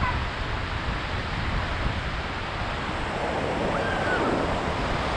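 Small surf waves breaking and washing up a sandy beach, a steady wash, with wind rumbling on the microphone.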